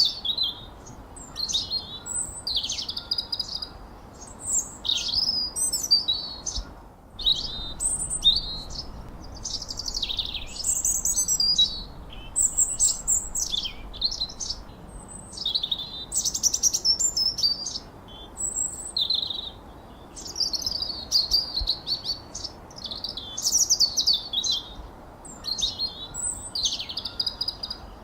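Songbirds singing a fast, varied run of high chirps and whistles, phrase after phrase with only short pauses, over a faint background hiss.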